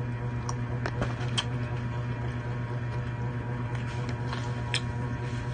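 A steady low mechanical hum, with scattered short sharp clicks and crunches of someone eating.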